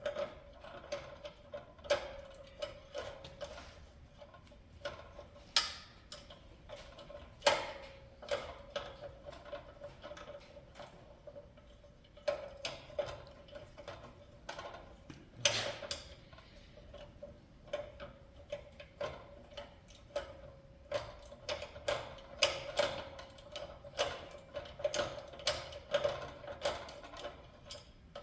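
Scattered clicks and metallic knocks of tools and steel parts being handled as a work table is fitted to a 2x48 belt grinder, with a few sharper knocks and a busier run of ticking near the end. A faint steady hum lies underneath.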